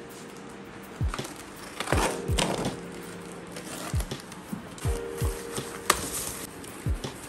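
A box cutter slicing along the packing tape of a cardboard carton, with a scraping, crackling stretch about two seconds in, then cardboard flaps being pulled open. Background music with a regular deep drum beat runs underneath.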